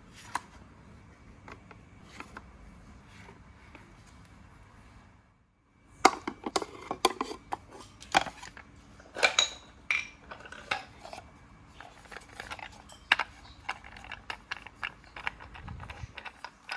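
Handling of thin plywood parts on a plywood board: a few faint clicks at first as a small bar clamp is worked, then from about six seconds in a busy run of sharp wooden taps and clacks as boards are set down, shifted and slid into place.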